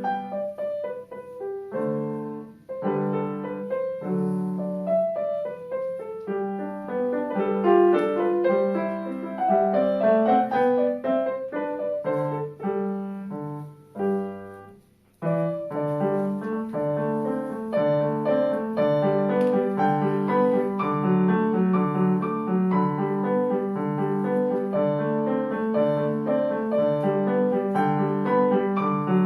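Solo piano being played, a classical-style piece, with a brief pause about halfway through before the playing resumes over an even, repeated figure in the lower notes.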